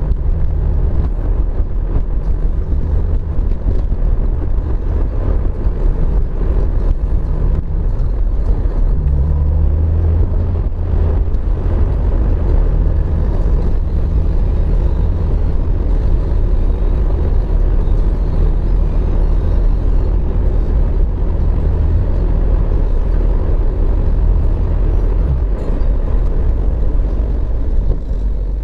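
Steady road noise heard from inside a moving car's cabin: a continuous low rumble of the engine and tyres running on a wet road.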